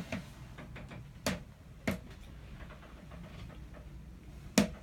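Three sharp knocks or clicks, a little over a second in, about two seconds in, and a louder one near the end, against a quiet background.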